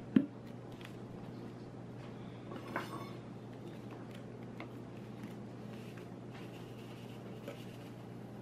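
Small kitchen handling sounds of measuring out an ingredient: one sharp click just after the start, a brief rattle or scrape near three seconds, and a few faint clinks of a measuring spoon, over a steady low hum.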